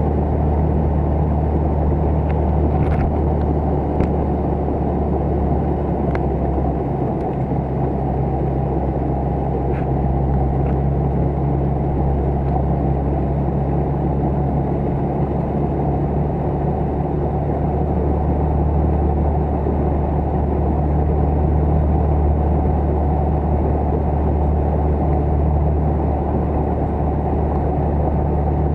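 Small motorboat engine running steadily at constant speed, a low, even drone.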